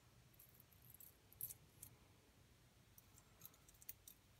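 Near silence with scattered faint clicks and ticks of small metal parts being handled, as coil leads are fitted into the posts of a rebuildable atomizer deck; the clearest click comes about a second and a half in.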